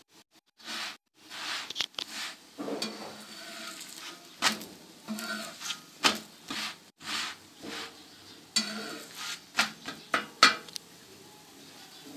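A cooking utensil knocking and scraping on a hot tawa in a dozen or so irregular sharp strokes as a lacha paratha fries in ghee, with a faint sizzle underneath.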